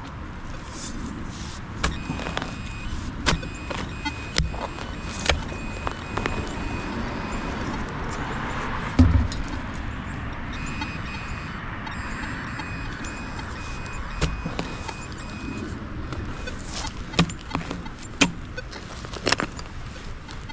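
A digging tool knocking and scraping irregularly in soil, with a metal detector's rapid, steady beeping in two stretches of about five seconds each: the detector is signalling a metal target still in the hole. One heavier knock comes about nine seconds in.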